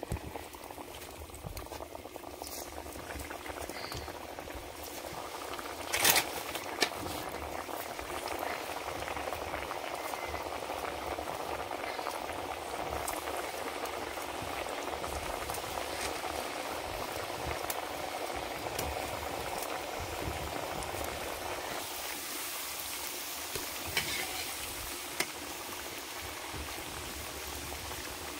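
Thekua dough cakes deep-frying in hot refined oil in a wok, a steady bubbling sizzle that swells for a while mid-way, with a few sharp knocks, the loudest about six seconds in.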